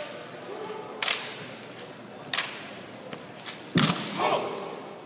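Drill rifles being slapped and struck in a squad's armed drill routine: sharp claps about a second apart, then the loudest, heaviest thud nearly four seconds in as the squad drops to a kneel with rifle butts grounded, followed by a brief shout.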